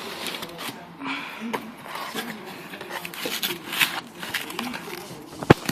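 Cardboard ration box and its plastic-wrapped packets being handled: irregular rustling, scraping and crinkling, with one sharp knock near the end.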